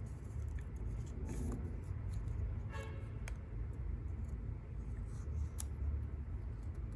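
Steady low background rumble with a few faint taps and rustles of paper being pressed and glued by hand, and a brief horn-like tone about three seconds in.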